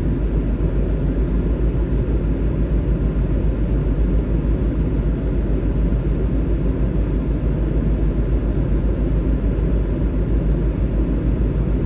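2000 Land Rover Discovery idling at a standstill with the heater blowing: a steady low rumble.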